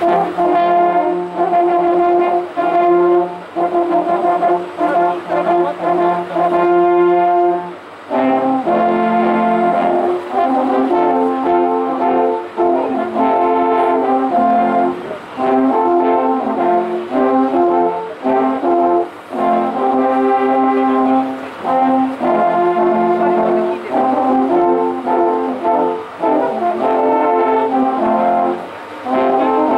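An ensemble of about ten alphorns playing together. They hold one long chord for the first eight seconds or so, then move into a melody of short phrases with brief breaks between them.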